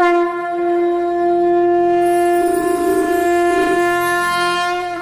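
A conch shell (shankha) blown in one long, loud, steady note that wavers briefly in the middle and fades out at the end.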